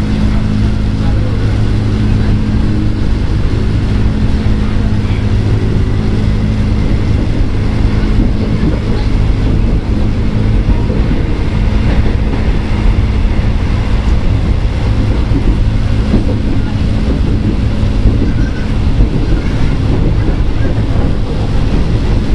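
Inside an ex-Tokyu 8000 series electric commuter train: a steady low electrical hum over a constant rumble, with no rise or fall in pitch.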